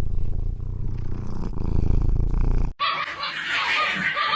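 A pet animal's low, steady rumble lasting nearly three seconds, cut off abruptly by a louder, higher-pitched noisy sound.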